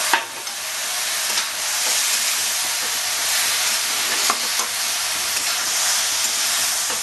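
Cabbage, potatoes and prawns sizzling in oil in a kadai as a metal spatula stirs them, with a few sharp clicks of the spatula against the pan. The sizzle dips just after the start, as the cold cabbage goes in, and builds back within about a second.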